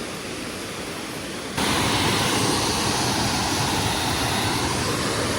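Steady rush of falling water from a waterfall, which jumps suddenly louder about a second and a half in and then holds steady.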